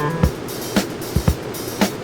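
Instrumental stretch of a pop song: a drum kit keeping a steady beat, about two hits a second, over a band backing.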